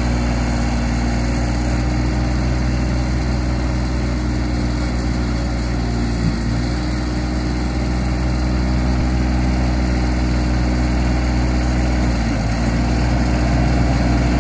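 John Deere compact tractor engine running steadily as it pulls a scarifier through the lawn turf, with the engine note dipping briefly twice.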